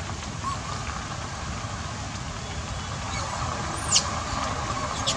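A car driving past with a low, steady rumble. About four seconds in, a macaque gives one short high-pitched squeal that drops in pitch.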